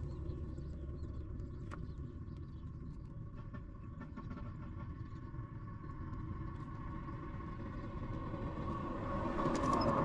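Steady low background rumble with a faint even hum. In the last moment, myna nestlings start sharp, high begging calls.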